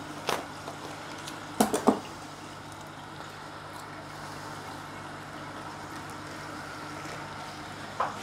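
A hand working in a clear plastic bucket of water, with light water movement and a few sharp plastic knocks, the loudest a quick run of three a couple of seconds in, over a steady equipment hum.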